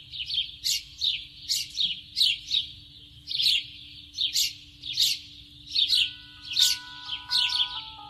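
A bird chirping over and over in short calls, about two a second. From about six seconds in, held musical notes join underneath.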